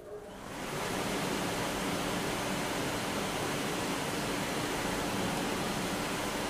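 Belt linisher switched on: its motor and sanding belt run up to speed within about a second, then run steadily with an even hiss and a faint hum.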